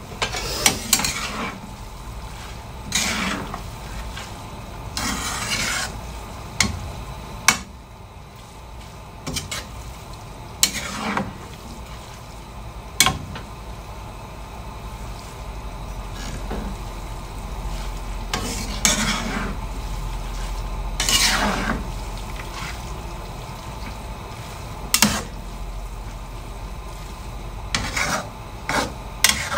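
Metal spatulas tossing and scraping rice-vermicelli noodles around a steel wok, with irregular scrapes and clinks of metal on the pan every second or two over a low sizzle.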